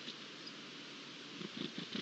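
Red kite calling: a quick, irregular run of short rattling pulses starting about one and a half seconds in, over a faint steady hiss.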